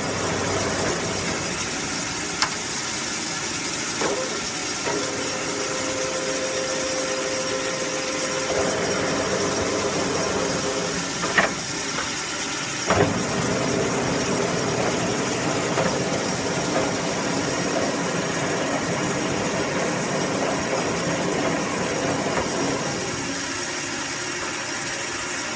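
Blanchard No. 11 rotary surface grinder running, with a steady motor hum and hiss and a few light clicks.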